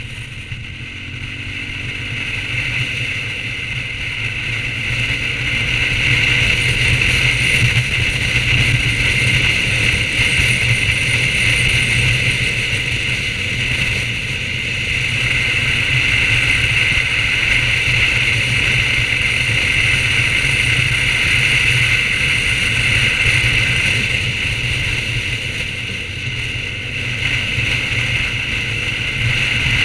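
BMW R1200GS boxer-twin engine running at road speed under steady wind and road noise. It grows louder over the first several seconds as the throttle opens, and eases off briefly around the middle and again near the end.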